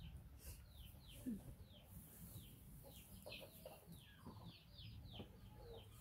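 Chicks peeping faintly in the background: a steady run of short, high, falling peeps, two or three a second.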